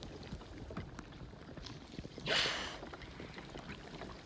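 Water lapping at a kayak with small drips and ticks, and one short hissing whoosh about two seconds in as a leopard seal breaks the surface beside it.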